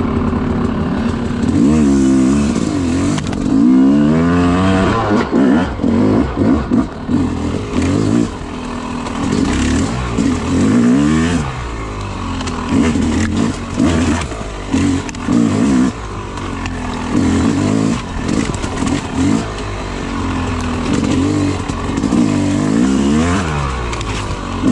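Yamaha YZ250 two-stroke dirt bike engine, heard up close from the bike, running steadily at first and then revving up and down over and over as the throttle is worked on tight trail.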